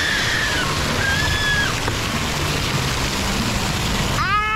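Steady rush of splash-pad water jets and sprays splashing down, with faint children's voices in the first couple of seconds. Near the end a long, steady, high-pitched squeal starts, louder than the water.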